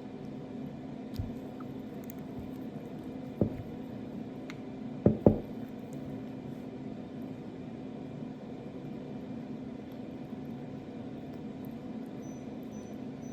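Cat gnawing a large marrow bone. The bone knocks sharply a few times: once about three and a half seconds in, then twice in quick succession about five seconds in. A steady low hum runs underneath.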